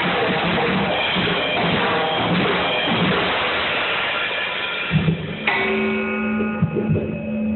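Music with drums playing loudly, under a rushing noise for the first five seconds or so; from about five seconds in, sustained notes come through clearly.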